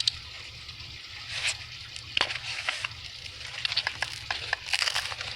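Scissors snipping and crackling through the plastic of a squirt gun toy: irregular sharp clicks and rustles over a low steady hum.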